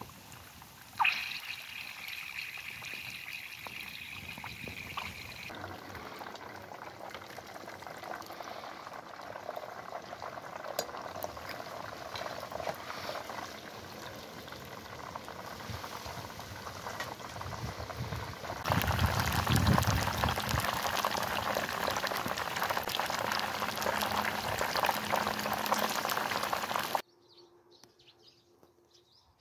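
Hot oil bubbling and sizzling around a whole chicken deep-frying in a pot: a steady frying hiss, with a thin high whine over it for the first few seconds. It gets louder about two-thirds through and cuts off abruptly near the end.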